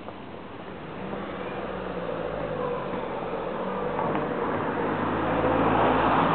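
A car approaching along the street, its engine and tyres growing steadily louder as it nears, with the low street traffic hum underneath.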